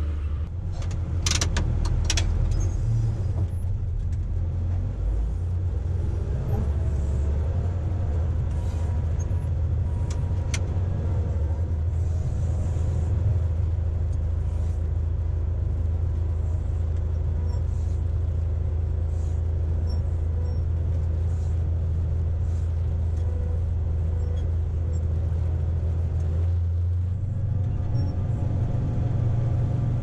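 Caterpillar 120H motor grader's diesel engine running steadily, mostly a deep low drone. There are a few sharp clicks in the first few seconds and one more about ten seconds in.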